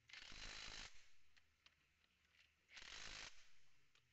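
Cordless impact driver hammering in two short bursts, the first a bit under a second and the second about half a second, running down the housing bolts of a rebuilt power steering pump.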